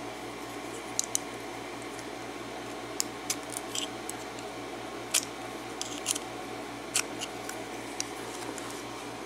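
Small sharp metal clicks and ticks, about a dozen at irregular intervals, of a tool working at the retaining clip on a lock cylinder while the lock is being taken apart. A steady low hum runs underneath.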